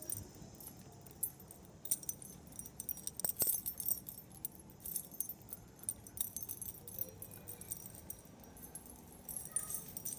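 Light jingling and clicking of small metal pieces close to the microphone, irregular and coming in clusters, over a faint rustle of handling as the phone is carried.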